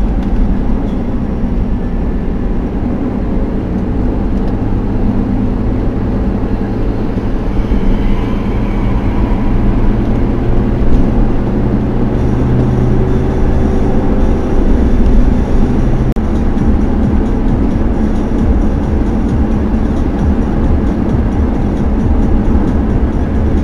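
Car cabin noise while cruising at motorway speed: a steady rumble of tyres and engine. A low drone joins in about five seconds in and drops out at about sixteen seconds.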